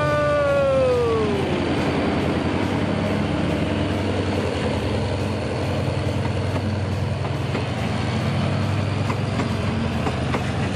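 GE diesel-electric locomotive pulling a passenger train out of a station at walking pace: a single note slides down in pitch over the first two seconds, then the engine's steady low drone, with a few clicks of wheels over rail joints near the end.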